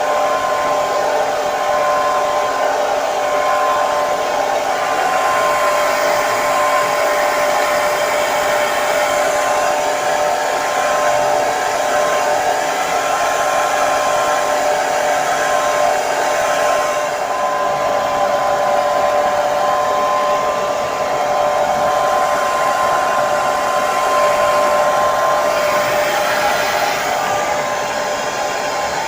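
Hair dryer running steadily: a constant rushing of air with a steady motor whine held at one pitch.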